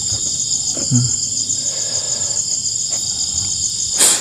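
Night insect chorus: a steady, high-pitched, finely pulsing trill. A short sharp noise cuts in near the end.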